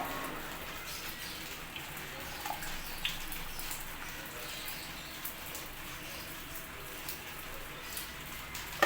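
Herbal decoction being strained: liquid trickling through a strainer with a steady hiss and scattered small drips.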